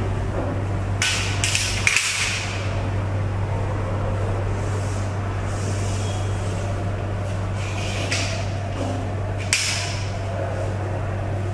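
Chalk scraping and tapping on a blackboard as a line is drawn along a ruler: a few short, sharp strokes about one to two seconds in and again near the end, over a steady low hum.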